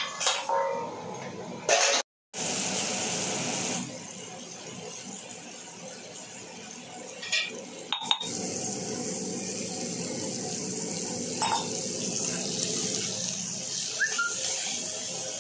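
Vegetables sizzling as they fry in hot oil in a kadai, a steady hiss, with a few short scrapes and knocks of a spatula against the pan.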